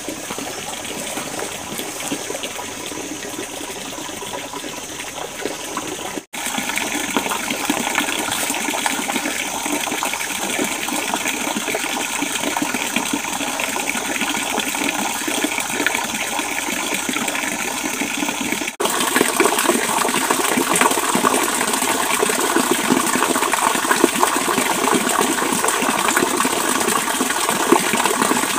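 A forest stream running: a steady rush of water that breaks off and resumes slightly louder twice, about six seconds in and again about two-thirds of the way through.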